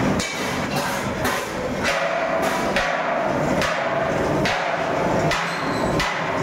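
Rotary drum roaster running, its wire-mesh sieve drum turning as sand-roasted rice tumbles through and out. A knock repeats roughly every 0.8 seconds over a steady noise of tumbling grains.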